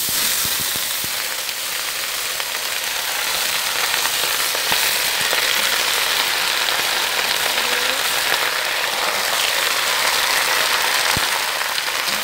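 Loud, steady sizzling as freshly washed choy sum greens hit hot oil in a wok, starting suddenly.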